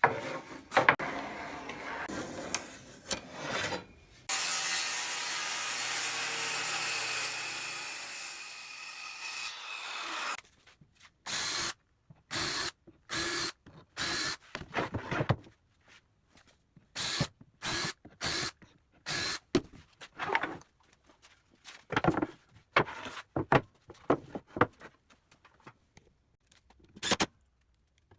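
Woodworking shop work. There are a few seconds of knocking and clatter from wood being handled. Then a power tool runs steadily for about six seconds and winds down. After that comes a long run of short bursts from a power drill, each under a second, like screws being driven.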